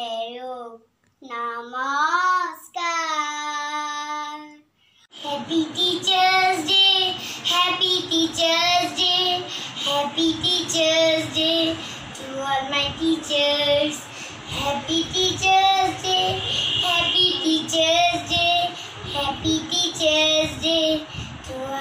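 A young child singing unaccompanied: a few sliding notes ending on a long held note. About five seconds in, a recorded children's song starts: a singing voice with vibrato over backing music with percussion.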